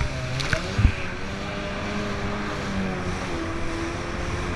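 Kawasaki 550 stand-up jet ski's two-stroke twin engine running under throttle, its note wavering and settling lower after about three seconds, over the rush of water and spray from the hull. There is a single thump about a second in.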